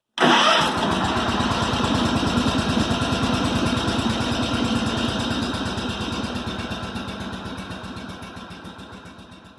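Small engine running with an even, rapid exhaust pulse after a brief louder burst at the start; the sound fades away over the last few seconds.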